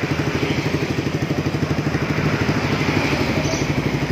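Yamaha R15's single-cylinder four-stroke engine idling through a stainless racing silencer, with steady, even exhaust pulses, left running while a dB killer is fitted into the silencer outlet.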